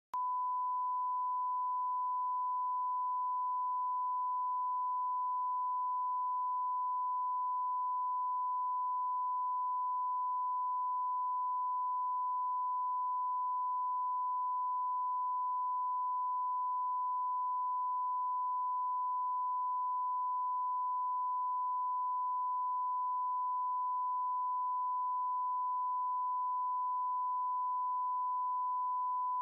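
Broadcast line-up test tone accompanying SMPTE colour bars: one steady, unwavering pure pitch held without a break.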